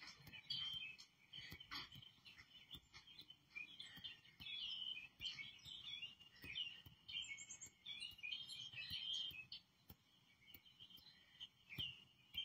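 Small garden birds chirping and twittering from a bird video played through a TV's speakers, faint, with a short lull about ten seconds in.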